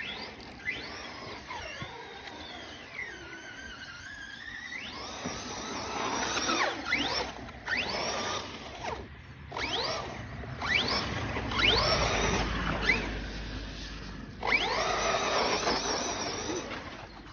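RC car's motor whining up and down in repeated bursts of throttle, each a quick rising whine, over a rough scrubbing noise as the car skids. There are about a dozen bursts, the busiest in the second half, with one slower falling whine early on.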